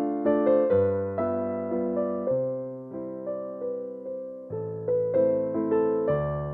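Background music: a gentle piano tune, single notes and chords struck one after another, each fading away.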